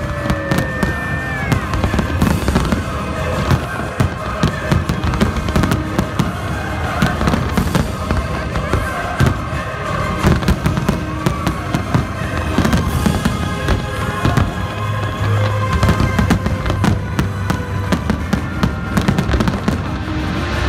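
Aerial fireworks bursting in a dense barrage: rapid bangs and crackling follow one another without a break, with music playing underneath.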